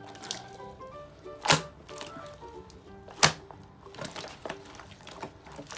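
Thick slime with wax chunks being squished and kneaded by hand, giving sharp wet pops and snaps: two loud ones about a second and a half and three seconds in, with smaller ones near the end. Soft background music plays under it.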